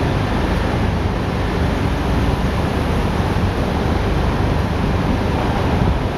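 Terrex 8x8 armoured infantry carrier vehicle driving past over gravel, its diesel engine running under a steady, heavy rush of noise.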